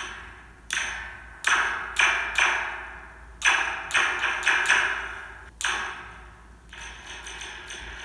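A suspended metal Slinky struck over and over with a pencil, picked up by a contact microphone on the coil: about ten sharp hits, each ringing out as a metallic, laser-like zap, with lighter taps near the end.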